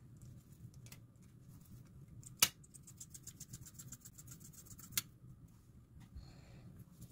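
Opened metal tin of Spam being shaken and knocked to free the meat stuck inside: two sharp knocks, about two and a half seconds apart, with a fast run of light metallic clicks between them.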